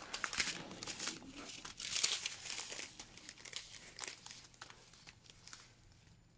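Small plastic bags of diamond-painting beads being handled, crinkling and rustling in short bursts that die away near the end.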